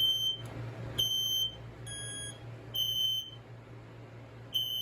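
FireX ionization smoke alarm's horn sounding: five high-pitched beeps about half a second each, with uneven gaps of roughly one second.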